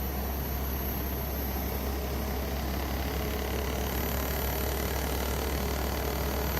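Midea U-shaped inverter window air conditioner running: a steady low hum under even fan and airflow noise.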